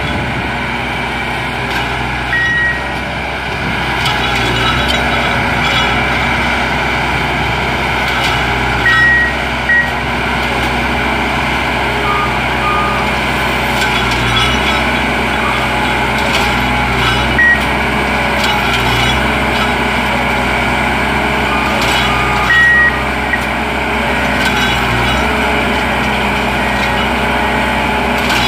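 Diesel engine of a rail-mounted maintenance-of-way tie machine running steadily, with short high warning beeps at irregular intervals.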